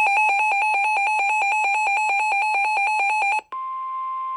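Emergency alert tones opening a flood warning broadcast: rapid, evenly spaced electronic beeping in two pitches stops about three and a half seconds in. A steady single-pitched alert tone then starts.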